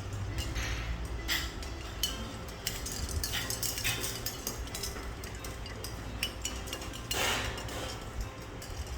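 Dishes and cutlery clinking in scattered light clicks over a steady low hum, with a brief rush of noise about seven seconds in.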